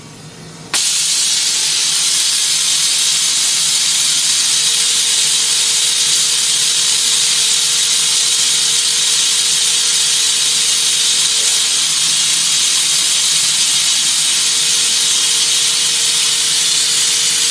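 DMU 50 Evolution 5-axis CNC machining centre letting out a loud, steady hiss that starts abruptly about a second in, with a faint steady hum and, from about four seconds in, a faint steady tone underneath.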